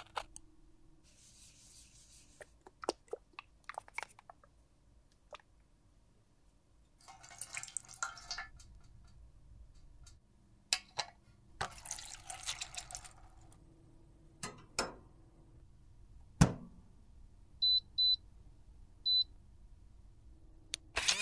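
A brush scraping and tapping on a metal makeup pan, then water splashing as a makeup puff is washed in a steel tray, a single low thump, and three short electronic beeps, two close together and then one, from a cabinet sterilizer's control panel.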